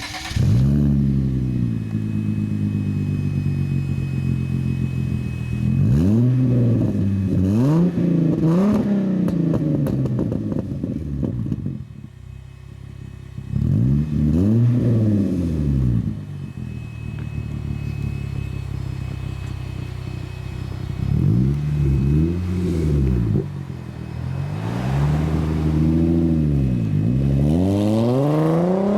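Hyundai Genesis Coupe 3.8 V6 through a custom single exit exhaust with the secondary catalytic converters deleted, starting up and idling, then free-revved several times, each rev climbing and falling back to idle.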